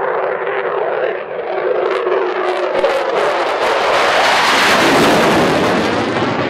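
F-16 fighter jet climbing out after takeoff and passing overhead: loud jet engine noise that builds to its loudest about five seconds in, with a crackling, rasping edge and a sweeping, phasing quality.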